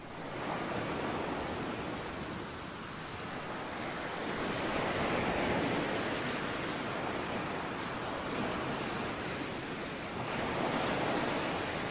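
Small waves washing onto a sandy beach: a steady surf hiss that slowly swells and eases.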